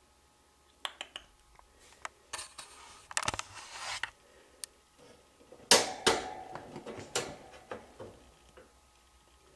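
Scattered clicks and knocks with scratchy rustling, the loudest knock about six seconds in, from small movements in and around a chinchilla cage.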